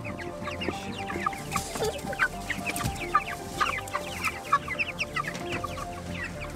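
A flock of young broiler chickens peeping continuously, many short falling chirps overlapping one another.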